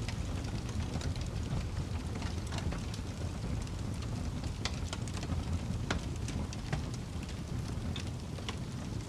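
Wood fire burning in a fireplace: a gentle, steady roar under scattered sharp crackles and pops, with a few louder pops around the middle.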